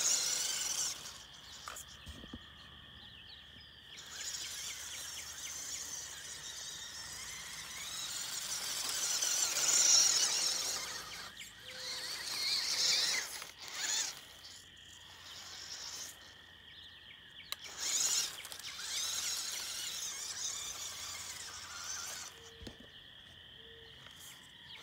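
WPL C14 RC crawler truck driving in high gear: high-pitched whine of its small 360-size electric motor and gearbox, rising and falling with the throttle over grass and gravel. It stops for a second or two several times as the throttle is let off.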